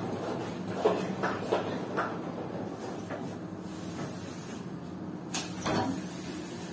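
Plastic spray bottle being handled while misting hanging ferns: a few light knocks and clicks, then a short hiss of spray about five seconds in.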